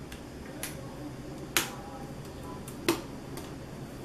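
Plastic clips of a Google Nexus 5's inner plastic cover snapping loose as it is pried off by hand: a few sharp clicks, the loudest about a second and a half in and just before three seconds.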